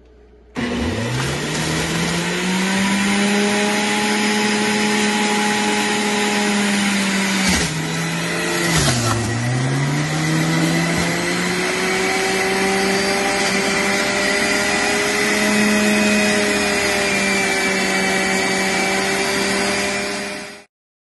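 Electric centrifugal juicer motor starting up, rising in pitch to full speed and running with a steady whine. Its pitch dips twice a little before halfway, the motor slowing as produce is pushed down the feed chute, then recovers. It cuts off near the end.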